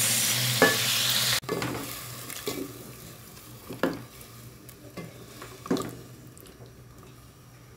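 Chicken stew sizzling in the pan for about a second and a half, then cut off suddenly. After that, quieter stirring, with a few scattered knocks and scrapes of the spoon against the pot.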